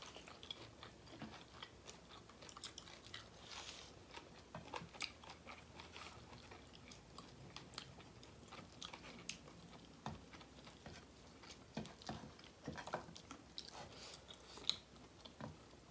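Faint eating sounds of two people eating rice and curry with their hands: chewing with scattered crunchy bites and small clicks.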